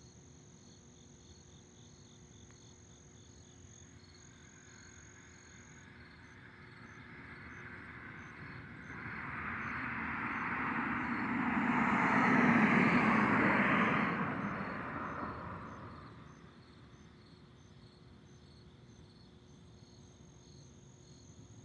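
A vehicle passing: a rising and falling rush of road noise that builds over several seconds, is loudest just past the middle, and fades away. Under it, crickets and other night insects keep up a steady, pulsing trill.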